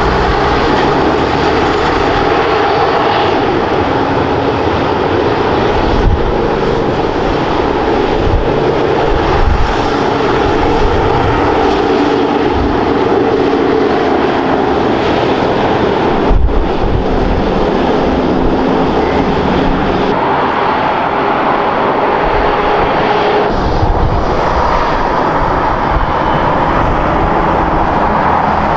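Heavy diesel truck-and-trailer rigs running loud and steady on a hill road, their engine drone shifting in pitch as they pull away and climb.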